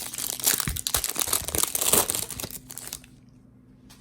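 Foil wrapper of a Topps Chrome baseball card pack torn open and crinkled by hand. The crackling stops about three seconds in.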